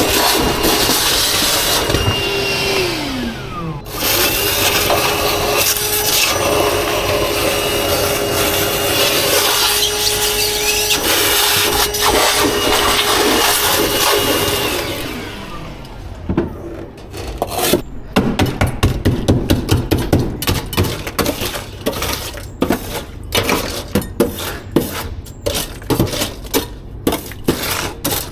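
A small electric motor runs with a steady whine and a rushing noise, winds down about three seconds in, starts again and runs until about fifteen seconds in, then winds down. After that come irregular knocks and clicks.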